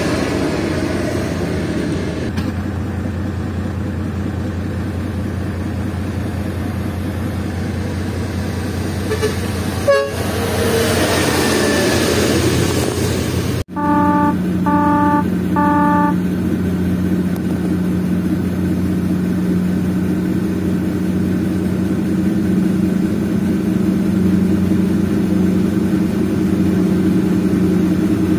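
Diesel engines of loaded logging trucks running steadily. A little past halfway a truck horn gives three short toots about a second apart.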